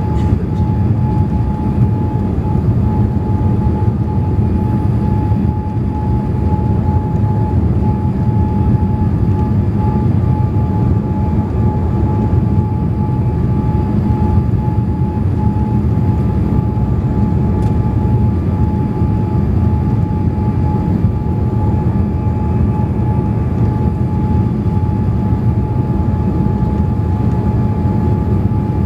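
Boeing 787 cabin noise: a steady rumble of airflow and engines with a constant high whine from the aircraft's hydraulic system, which the passenger takes to be set off by the flaps once they are deployed.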